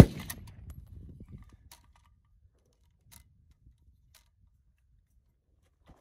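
A single shot from a suppressed 6mm Creedmoor bolt-action rifle, sharp and loud, its report trailing off over about a second and a half. A few faint clicks follow.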